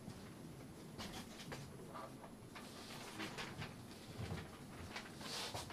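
Quiet room tone with faint scattered clicks and short rustling noises.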